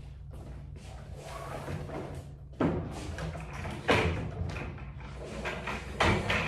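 Three sharp thuds, about a second or so apart, over a steady low hum and rustling, like a door or objects being handled.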